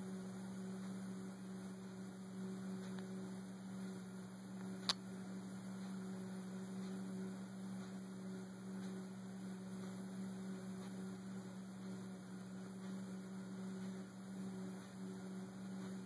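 Steady low electrical hum over a faint hiss, with a single sharp click about five seconds in.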